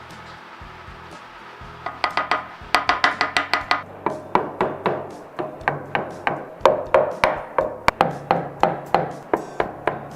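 Hammer driving wooden dowels into drilled holes through an oak cutting board's breadboard ends. It strikes rapidly in quick runs of about four blows a second, starting about two seconds in, each blow a sharp ringing knock.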